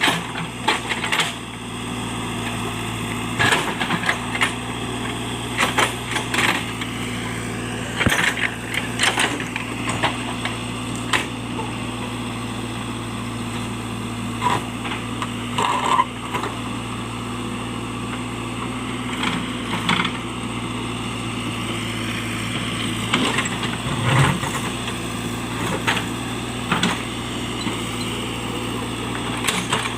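JCB backhoe loader's diesel engine running steadily, with irregular sharp knocks and cracks every few seconds as it works at uprooting trees.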